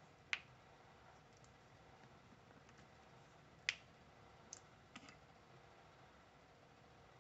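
Plastic plunger cutter clicking as its spring plunger is pressed to release a cut piece of cold porcelain clay: two sharp clicks about three seconds apart, then a few fainter ticks, over near silence.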